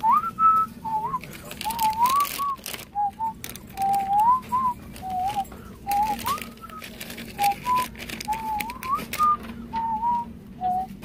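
A young man whistling a wandering, tuneless melody through pursed lips: a string of short notes, several sliding upward.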